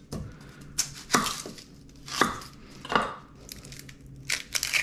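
Chef's knife cutting through an onion onto a cutting board: a handful of separate, irregularly spaced strokes, three of them louder, as the onion is trimmed and split before peeling.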